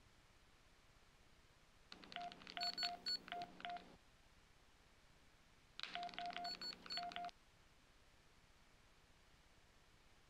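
Mobile phone keypad beeping as its keys are pressed: two quick runs of about five short beeps, a few seconds apart, each beep with a light key click.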